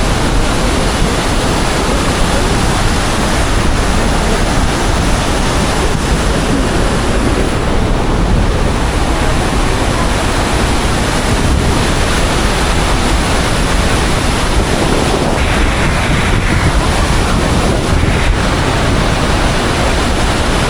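Steady, loud rush of the Iguazu Falls' cascading water, with a heavy low rumble that includes some wind on the microphone.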